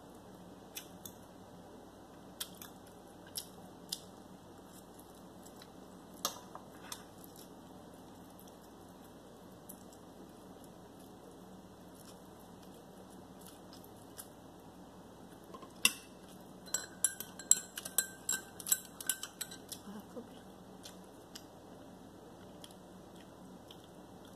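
A metal fork clinking against a ceramic plate a few times as noodles are twirled. About two-thirds of the way through comes a quick, dense run of sharp clicks and clinks of tableware being handled, the loudest sounds here, before it settles back to quiet room tone.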